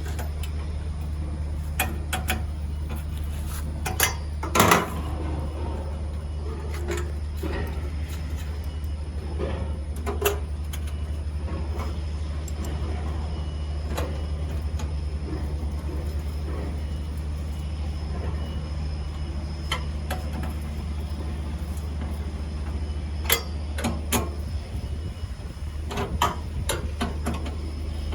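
Scattered metallic clicks and knocks of hand tools on generator parts as the fuel tank is bolted back on, over a steady low hum.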